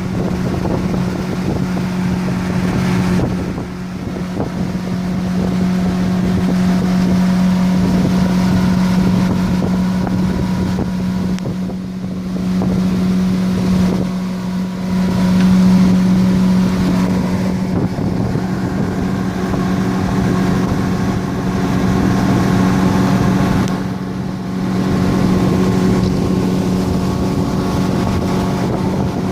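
Motorboat engine running at a steady, unchanging pitch, a constant drone under way.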